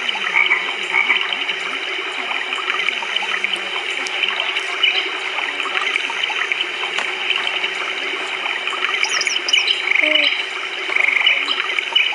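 A pet bird gives a few quick, high chirps near the end, over a steady background hiss and hum.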